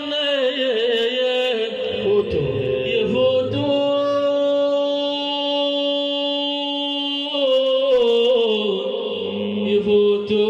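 A male voice singing an Arabic religious praise song (madih) in a drawn-out, ornamented melodic line. In the middle it holds one steady note for about four seconds, then glides on again.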